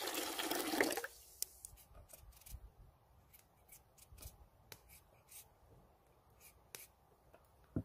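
Water pouring into a cast-iron pot for about the first second, then the short, scattered scraping clicks of a knife cutting raw potatoes, with one sharper click near the end.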